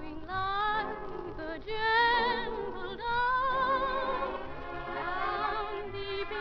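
Singing with vibrato over orchestral accompaniment: a show tune from a 1950 radio broadcast of a stage musical.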